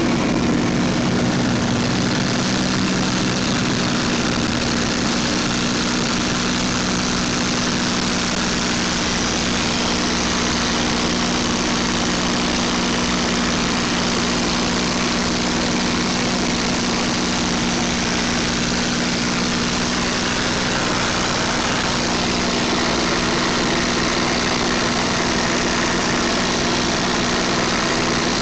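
A WWII piston-engined warbird's engine droning steadily in cruise flight, heard from inside the aircraft, with a constant steady hum under a heavy rush of air.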